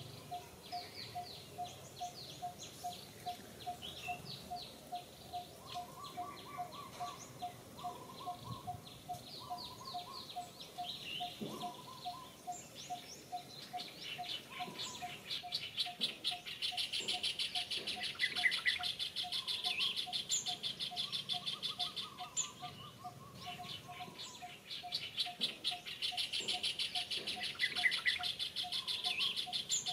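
Wild birds calling in the trees: one bird repeats a single low note about twice a second throughout, over scattered chirps and whistles. About halfway in, a rapid, high buzzing trill starts and becomes the loudest sound.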